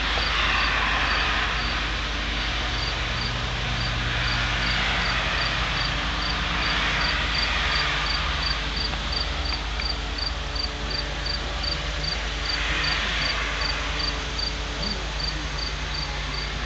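A cricket chirping steadily, about three short high chirps a second, over a rushing hiss that swells and fades a few times.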